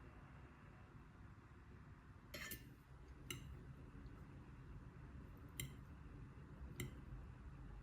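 Four light clinks of a utensil against a dish over quiet room tone. The first, about two and a half seconds in, is a quick double clink.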